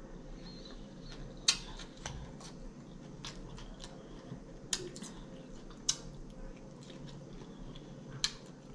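Close-up eating sounds: quiet chewing, broken by several sharp clicks spaced through it, the loudest about a second and a half in.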